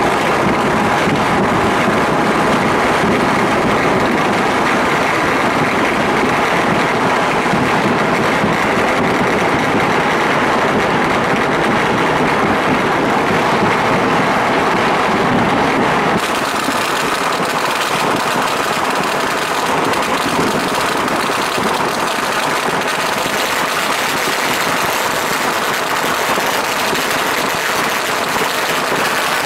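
Fireworks and firecrackers going off all across a city, far and near, merging into one steady, unbroken wash of crackling noise rather than separate bangs. About halfway through, the sound changes abruptly, losing some of its low rumble and turning more hissy.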